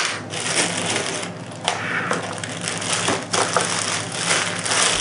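Packaging being handled during an unboxing: a sharp click, then repeated crinkling and rustling, like plastic wrap and packing being pulled apart.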